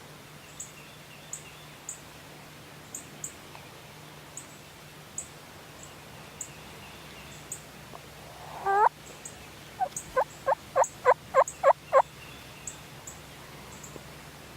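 Turkey calling: one loud call shortly before nine seconds in, then a string of about nine short, evenly spaced notes over two seconds.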